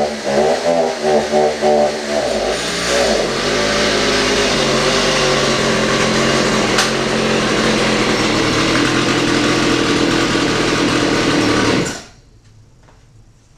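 Two-stroke Stihl MS290 chainsaw, rebuilt with an MS390 engine, running: its pitch rises and falls with throttle blips at first, then it is held steady at high revs for about ten seconds and cuts off suddenly near the end.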